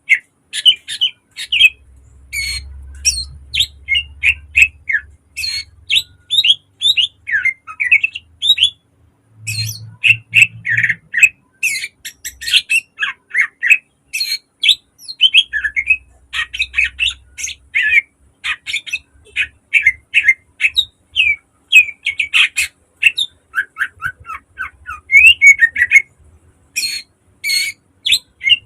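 Greater green leafbird (cucak ijo) singing a fast, dense song of sharp, piercing notes and quick sweeping chatter, with only brief pauses.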